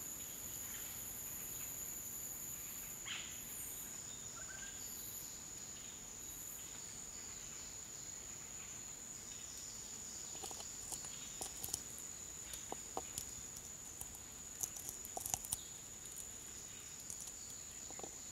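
Steady high-pitched insect drone of tropical forest ambience, with a scatter of small clicks and scrapes from about ten seconds in as a metal tool works the detonator out of a plastic PMN-2 landmine.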